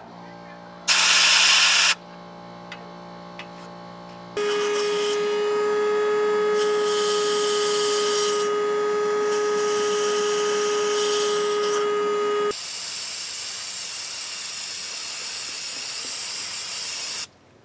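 A short loud hiss about a second in, then a small power tool running steadily at one pitch for about eight seconds, then a longer even hiss of spraying air or aerosol that cuts off near the end.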